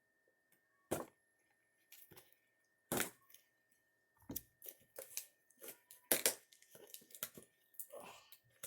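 Packing tape on a cardboard box being cut and torn open: two sharp rips about one and three seconds in, then a quick run of rips and scrapes through the rest.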